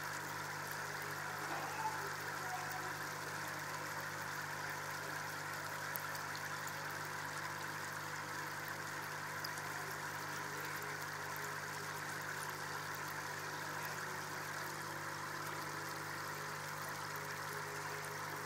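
Aquarium filter pump running with a steady hum, with a faint, even trickle of water.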